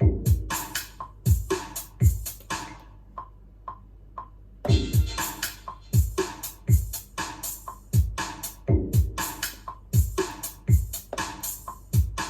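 Electro house beat from a Maschine groovebox: deep kick drums that fall in pitch, with claps and hi-hats. The kick drops out about three seconds in and comes back in full about a second and a half later.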